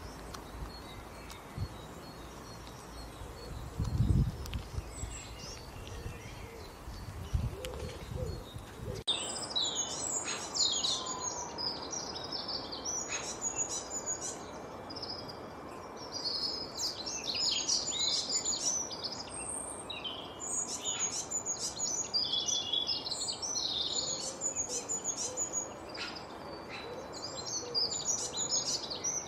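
Many small songbirds chirping and singing at once, with dense overlapping short high calls and trills. Before an abrupt change about nine seconds in, the birds are faint and a few low thumps stand out.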